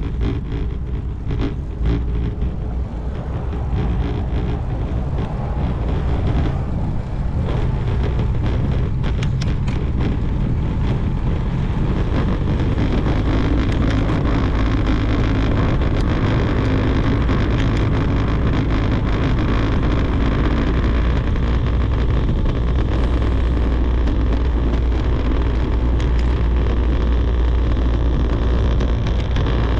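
Steady low rumble of wind buffeting the microphone and bicycle tyres rolling over brick pavers, with scattered clicks and rattles in the first ten seconds or so.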